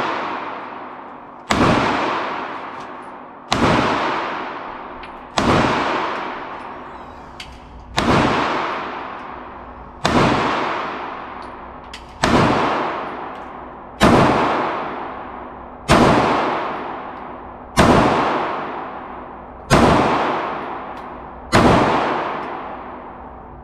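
Pistol fired slowly at an indoor range: eleven single shots at a steady pace of about one every two seconds. Each crack is followed by an echo off the range walls that fades over about a second and a half.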